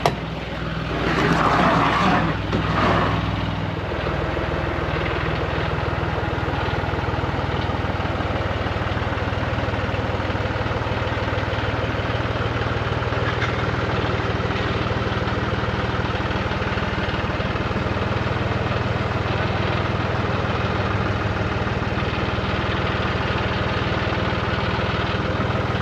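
A loud clatter in the first few seconds, then a John Deere 5055E tractor's three-cylinder diesel engine running steadily.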